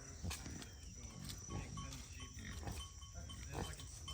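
Pig grunting, a string of short grunts with a few sharp clicks among them.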